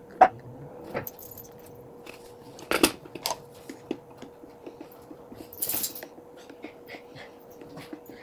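Small clicks and ticks of a paddle stirring coffee grounds in a plastic AeroPress chamber, with a heavier knock about three seconds in as a metal gooseneck kettle is set down on the stone counter. A faint steady hum runs underneath.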